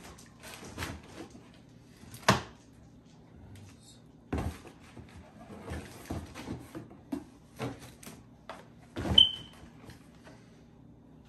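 Plastic cleaning-product bottles and boxes being handled and set down in a cardboard box: scattered knocks, taps and scrapes. The loudest knocks come about two seconds in and about nine seconds in, the second with a short squeak.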